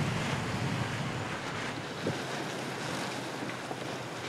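Steady wind buffeting the microphone over the rush of water around a sailing boat under way.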